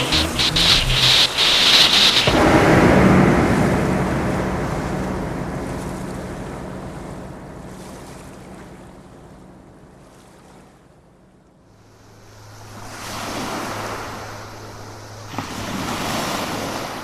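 Ocean waves washing in: a rushing surge that swells and slowly fades over several seconds, followed by two more swells near the end, over a low steady drone. A short rhythmic music passage ends about two seconds in.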